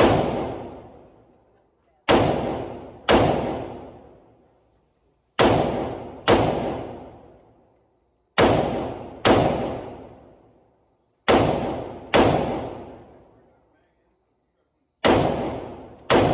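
Rifle gunshots fired in pairs, with the two shots of each pair about a second apart and a new pair every two to three seconds. Each shot is followed by a long echoing tail that dies away over a second or more.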